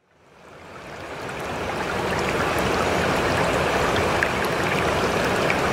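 Steady rush of water with small scattered pops, fading in over about the first two seconds.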